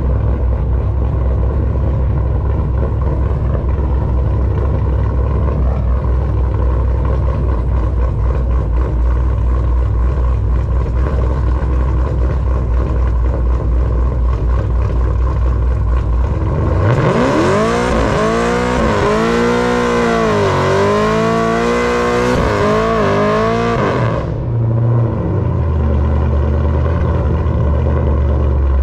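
Pontiac G8 race car's engine idling with a low rumble, then revved hard about 17 seconds in, rising and falling several times over a loud hiss for about seven seconds, a burnout spinning the rear tires, before it settles back to idle.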